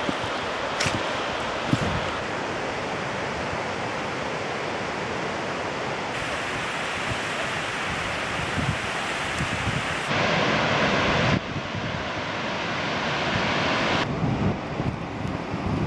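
Steady rushing noise, at first the running noise inside a moving train carriage. It changes abruptly several times to other steady rushing noise.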